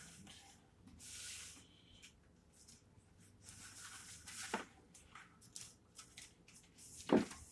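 Hands handling an EMT kit item: fabric rustling and rubbing in short bursts, with a few small clicks and one louder knock near the end.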